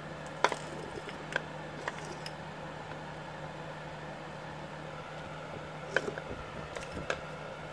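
Cast-aluminium engine mounts being handled and shifted on a concrete floor: a few sharp knocks and clicks, the loudest about half a second in and about six seconds in, over a steady background hum.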